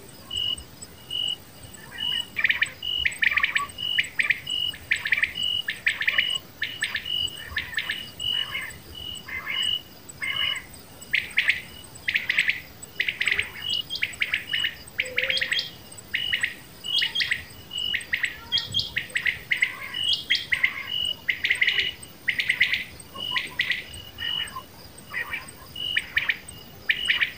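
Common quail calling over and over in short, sharp, clipped phrases: a batair call of the kind played to draw quail. A steady high pip repeats about twice a second underneath.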